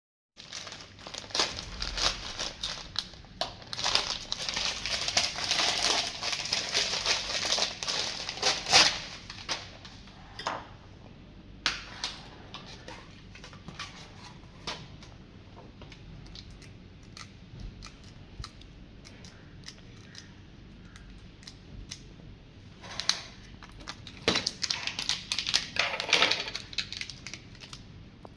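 Crinkling and rustling, dense for several seconds, then sparse clicks, then a second dense spell near the end.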